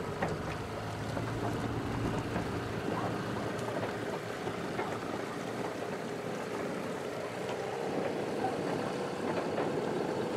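A boat engine running steadily, with wind and water noise.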